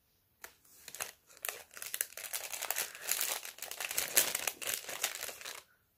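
Thin clear plastic packet holding a wax melt crinkling as it is handled and opened, starting about half a second in and stopping just before the end.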